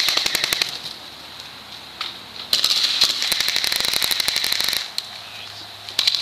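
Airsoft rifles firing on full auto: rapid strings of sharp clicks, with a short burst at the start, a longer burst of about two seconds in the middle, and a few more shots near the end.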